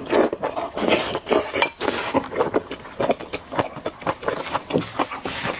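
Close-up eating sounds: noodles being slurped and chewed in quick, irregular bursts, with light clinks of utensils against the bowl.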